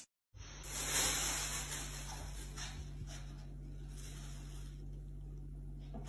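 Low, steady hum under a faint hiss: quiet room tone, with no distinct sound event.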